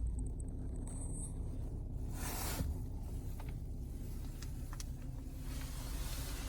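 Steady low rumble inside the cabin of a BMW 340i xDrive (F30) on a low fuel tank, with no rhythmic helicopter-like thumping from the rear seat area: the low-fuel noise that a software update under BMW SIB 12 20 19 was meant to cure. A brief hiss comes about two seconds in, with a few faint clicks after it.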